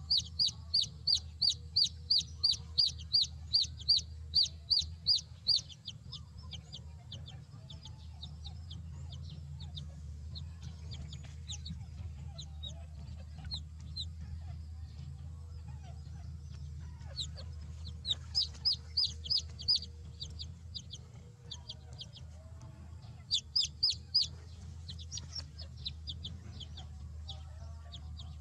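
Baby chicks peeping: rapid runs of loud, high, shrill peeps, two or three a second, for the first six seconds. Fainter scattered peeps follow, then two more short loud runs later on, over a steady low rumble.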